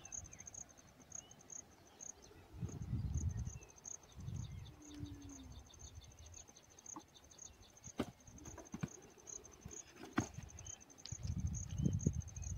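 Insects chirping in a steady, evenly spaced high pulse, joined a few seconds in by a faster ticking trill. Low rumbles come twice, a few seconds in and again near the end, and there are a few sharp clicks.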